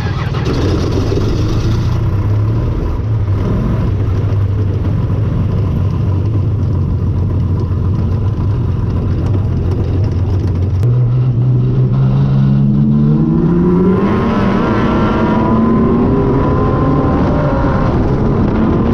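Wingless sprint car V8 engine running at a steady low pitch, then revving up about eleven seconds in, its pitch climbing over a few seconds and holding high.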